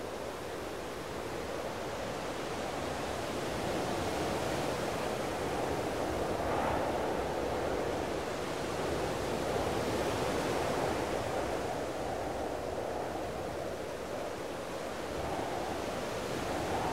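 Rough sea surf washing against a rocky shore, a steady rushing that swells and eases, with wind.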